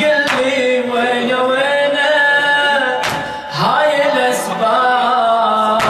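A man chanting a Shia latmiya lament into a microphone in long, drawn-out melodic phrases with held notes, breaking off briefly about three seconds in before the next line.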